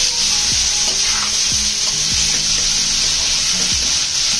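Bitter gourd and potato bhaji frying in a pan over a high flame: a steady sizzle, with a spatula stirring and striking the pan about every half second.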